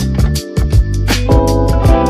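Background music: a funk-style track with bass, guitar and a steady drum beat.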